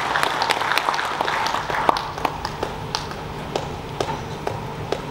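Audience applauding, dense at first and thinning to a few scattered claps in the second half.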